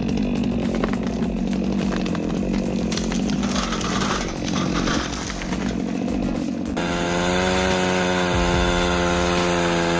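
Chainsaw running and cutting, mixed with many rapid clicks and knocks. About seven seconds in the sound switches abruptly to a chainsaw engine held at a steady, high-revving note.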